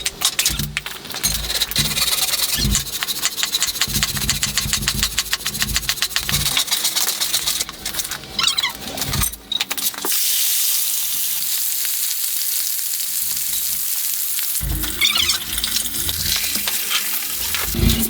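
Food frying in a pan: sizzling with stirring and repeated knocks, and a stretch of steady hissing about halfway through.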